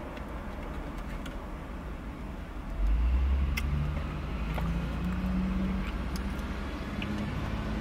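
Low rumble of a car engine that grows louder about three seconds in and then climbs slowly in pitch, like a vehicle pulling away close by. A few light clicks of a utensil against a takeout container.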